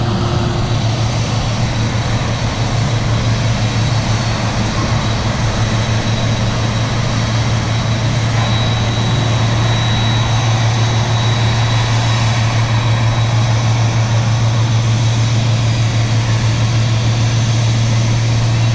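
Boeing 767-300F freighter's twin General Electric CF6-80C2 turbofans running at taxi power: a steady deep rumble under an even jet rush, with a faint high whine.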